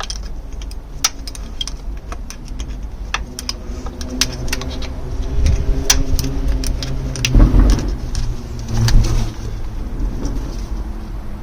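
A passing vehicle's engine, swelling to its loudest about seven to nine seconds in, over a scatter of sharp clicks.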